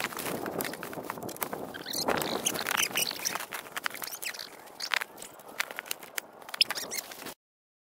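Black pop-up ice-fishing shanty being set up on snow: fabric rustling and being pulled taut, with a fast run of crunches, clicks and squeaks from the frame and from footing in the snow. The sound cuts off abruptly a little after seven seconds in.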